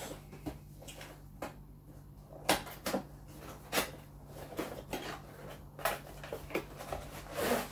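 Long cardboard tripod box being handled and opened: a string of short knocks and rustles, about one a second, as the box is turned and tapped against the wooden table and its end flap is worked open.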